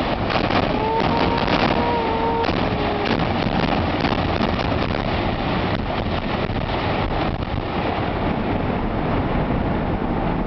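Demolition implosion of a large domed arena: a rapid series of sharp cracks and bangs from the explosive charges in the first few seconds, running into a long, steady rumble as the structure collapses and the dust cloud rolls out.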